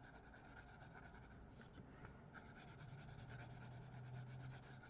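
Faint scratching of a drawing tool coloring on paper, with a faint low hum starting in the second half.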